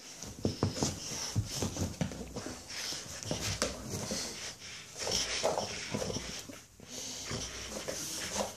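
Boxer dog breathing noisily in short, irregular bursts as it pulls and shakes a cloth in a game of tug-of-war.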